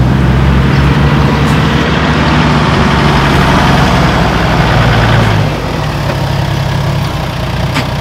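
Toyota LandCruiser 80 Series four-wheel drive's engine running with a steady low drone while driving a bumpy sand track. About five and a half seconds in, the engine note drops away and the sound gets a little quieter.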